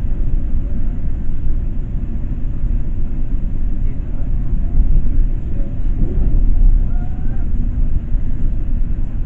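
Steady low rumble of a FrontRunner commuter train in motion, heard from inside the passenger car as it rolls along the track.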